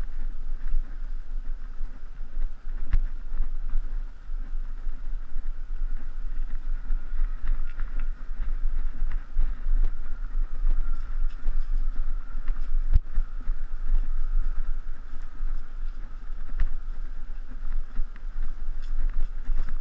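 Mountain bike riding a dirt single-track, heard from a camera on the bike: steady wind noise on the microphone and rolling noise, with scattered clicks and rattles from bumps in the trail.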